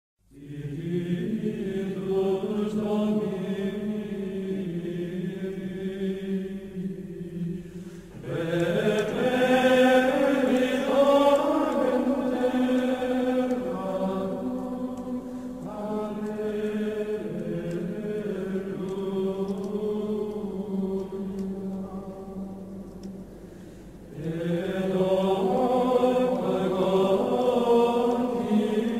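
Background music of sung chant: voices holding long, slow notes, with new phrases coming in about eight seconds in and again near the end.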